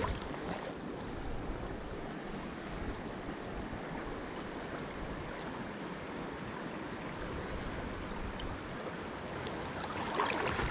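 Steady rush of a river's current flowing past a wading angler, heard close to the water surface; briefly louder near the end.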